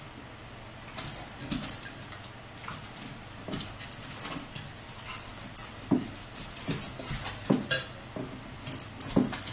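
Dog whimpering in several short whines, over the chewing and fork clicks of people eating.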